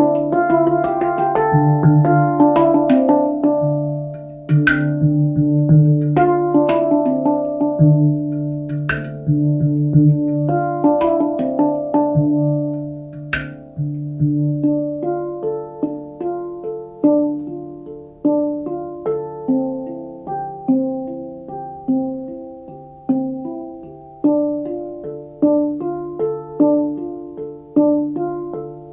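D Kurd handpan of nitride steel, played with the hands: struck notes ring out over the low D ding note, which keeps sounding, with sharp taps mixed in during the first half. From about halfway the playing settles into a steady run of single notes, each struck and left to fade.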